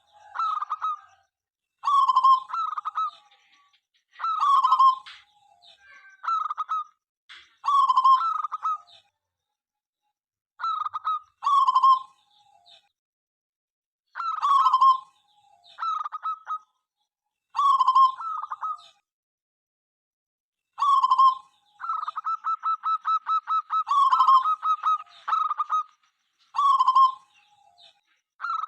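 Zebra dove (perkutut) cooing: short rolling coo phrases repeated every two to three seconds, with a longer, quicker run of rapid notes about three quarters of the way through.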